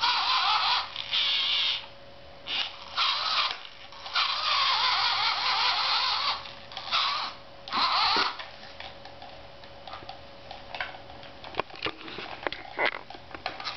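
Electric motor of a large remote-control Thomas the Tank Engine toy whirring in short bursts, starting and stopping abruptly as the remote's button is pressed and released. Scattered knocks and clicks follow in the last few seconds.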